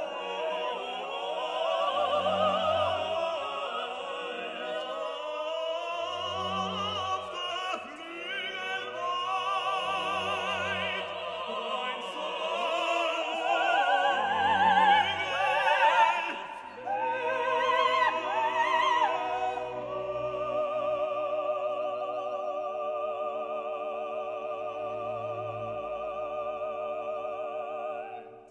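Background music: operatic singing with a wide vibrato over orchestral accompaniment, settling into a long held chord that fades out near the end.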